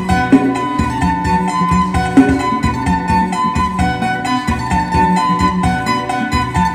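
Isan phin, the plucked Thai lute, playing a fast lam sing melody over a steady beat and a repeating bass line.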